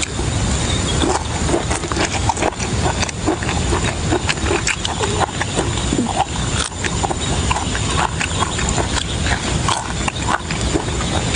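Close-up chewing and lip-smacking of rubbery beef tripe: a rapid run of wet clicks and smacks, over a steady low rumble.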